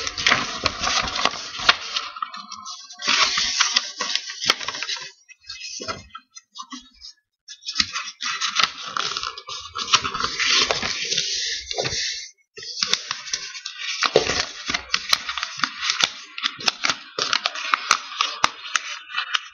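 A sheet of paper being handled and folded: rustling and crinkling in stretches of a second or two, dotted with sharp clicks as the creases are pressed down, with short pauses between.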